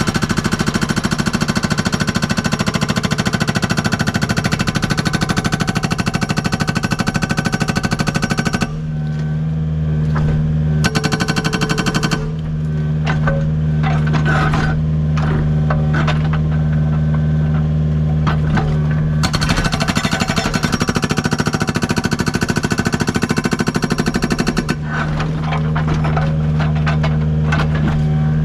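Agrotk 680 hydraulic breaker hammer on a Kubota U55 mini excavator pounding rock in rapid blows. It hammers in spells: a long run of about nine seconds, a short burst of about a second, then another run of about five seconds starting past the middle and a fresh start at the very end. The excavator's diesel engine runs steadily through the pauses.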